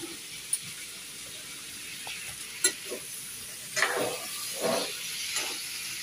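Cut raw mango pieces sizzling as they fry in a pan, with a steady hiss, while a ladle stirs them, scraping and clinking against the pan several times. The sharpest knock comes a little before halfway, and a cluster of scrapes follows about two-thirds of the way through.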